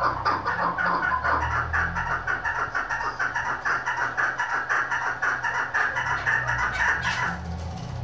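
Female chukar partridge calling, a fast, even run of short clucking notes, about six a second, that stops about seven seconds in.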